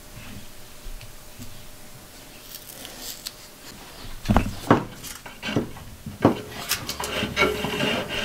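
Faint handling noise, then from about four seconds in a string of sharp clicks and knocks as thick electrical cable and hand tools are worked at a metal breaker panel.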